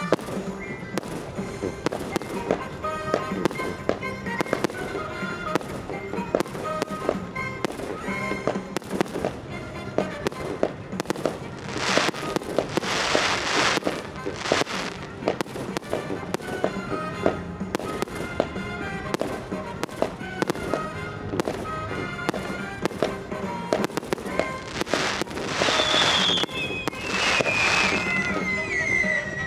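Aerial fireworks display: shells bursting in quick succession, with two long swells of crackling hiss and a falling whistle near the end, over music.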